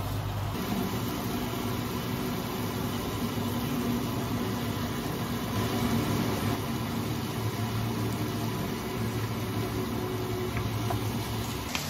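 Steady low mechanical hum of a kitchen fan running, over the soft hiss of kimchi fried rice frying in a pan on an induction hob as it is stirred with a wooden spatula.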